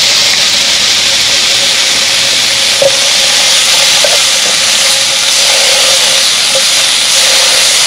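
Pork belly sizzling in a hot pan: a loud, steady hiss with a few small pops.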